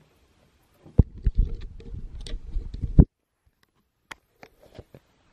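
Handling noise on a phone's microphone: about two seconds of muffled low rumbling with sharp knocks as the phone is moved about, cutting off suddenly, followed by a few faint clicks.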